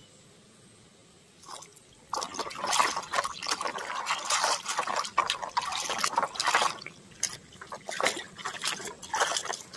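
Hand sloshing and splashing soapy water in a plastic basin, starting about two seconds in and going on in irregular splashes.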